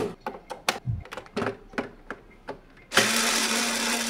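Sharp plastic clicks and snaps as a plastic pry tool works a piggy bank's plastic case apart. About three seconds in, a small power tool motor starts and runs steadily with an even hum.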